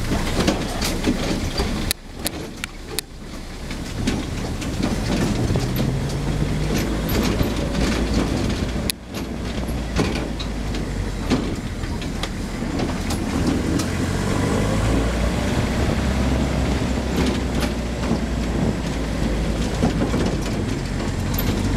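Off-road vehicle's engine running as it drives over a rough, rutted dirt track, with frequent knocks and rattles from the bumps.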